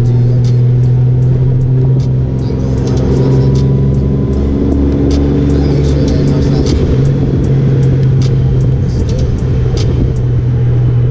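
Honda Gold Wing motorcycle under way: a steady, loud engine drone with road and wind noise, holding an even speed.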